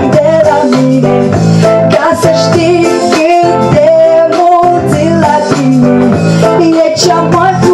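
Loud pop music with guitar.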